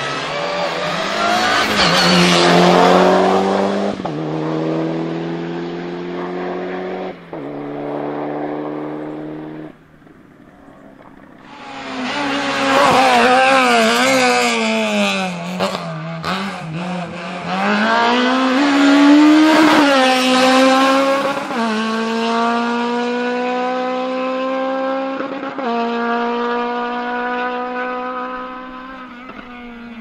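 Two hillclimb race cars accelerating hard one after the other. First a Mitsubishi Lancer Evolution IX rally car pulls up through the gears, its engine pitch climbing and dropping at each shift, and fades away about ten seconds in. A second car, a small hatchback, follows: its engine note warbles rapidly up and down for a few seconds, then climbs through the gears with clear upshifts and fades near the end.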